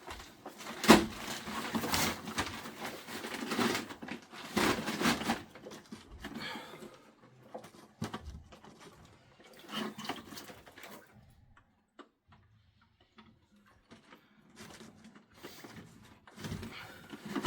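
Irregular knocks, scrapes and rustles of plastic sump-pump discharge pipe and its clamp coupling being handled and fitted together, going quiet for a few seconds about two-thirds of the way through.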